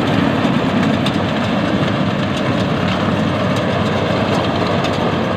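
Yanmar YH850 combine harvester running steadily at close range while its header cuts standing rice, a dense, even machine noise of diesel engine and threshing works.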